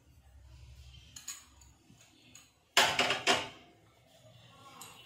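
A spoon and dishes clattering: two sharp knocks about half a second apart, a little under three seconds in. Before them come a few light taps of a spoon.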